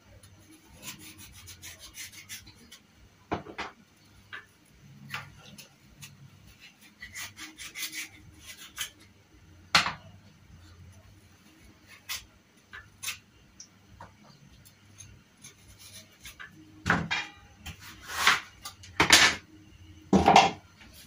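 A large kitchen knife cutting raw butternut squash on a chopping board: irregular knocks and scraping strokes, with a few louder knocks near the end.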